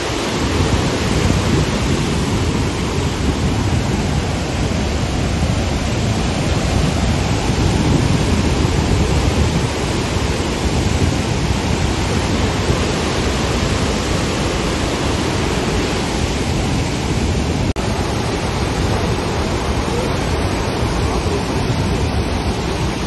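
Godavari river in flood, a loud steady rush of fast-moving water. There is a brief click and dip about three-quarters of the way through.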